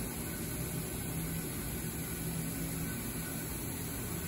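CNC router running with a steady low hum and even hiss while it homes its axes to find its zero point.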